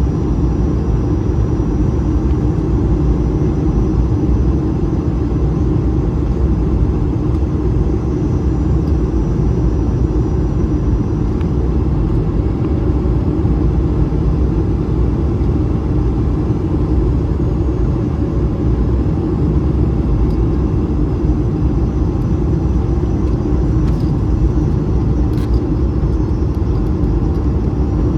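Steady cabin noise inside an Airbus A220 airliner on approach: a constant deep rumble of airflow and engines, with a faint thin high tone above it and a couple of faint clicks near the end.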